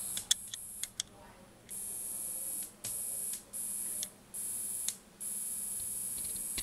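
Three sharp clicks in the first second as fingers work the Audio-Technica AT-LP120 turntable's front controls, the first the loudest. A steady high hiss runs underneath and drops out several times.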